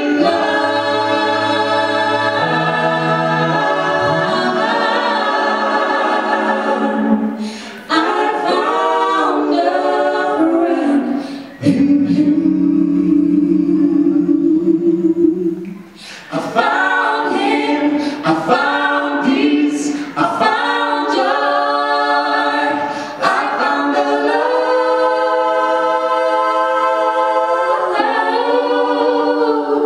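Mixed male and female a cappella gospel group singing in close harmony, holding long chords of several seconds with short breaks between phrases.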